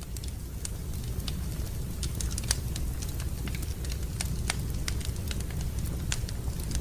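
Wood fire burning in a fireplace: irregular sharp crackles and pops over a steady low rumble.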